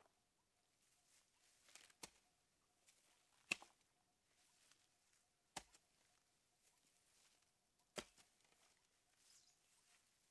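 Near silence broken by four short, sharp knocks a couple of seconds apart.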